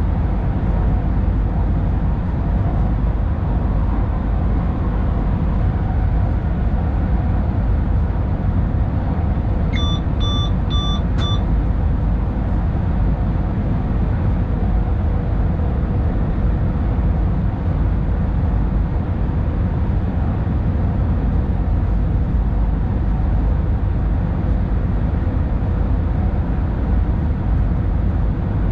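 Tilting electric passenger train running at speed through a tunnel, heard from the driver's cab as a steady low rumble. About ten seconds in, a quick run of about four short electronic beeps sounds.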